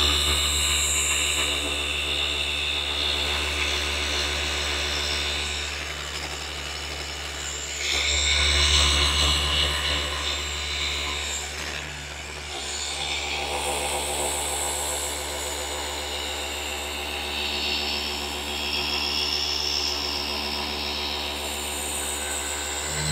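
Flex FX3331 24V cordless gear-driven orbital polisher running against car paint: a steady motor hum and whine whose loudness rises and falls as the pad works the panel, swelling about eight seconds in.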